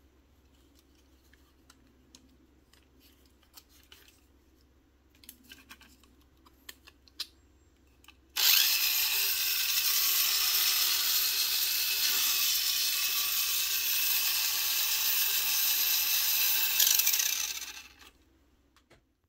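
Tamiya Mini 4WD Dual Ridge Jr. (VZ chassis) running with its wheels off the ground: its electric motor and gear train give a loud, steady, high whir for about nine seconds. The whir starts abruptly a little before the middle and winds down near the end. Before it, a few light plastic clicks from the car being handled.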